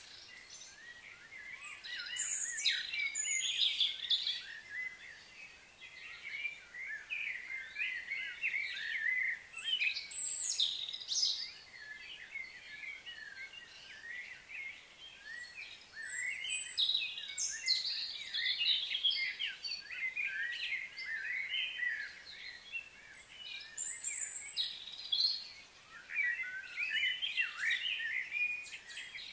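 Birds chirping and calling in a dense, busy chatter that swells and fades several times.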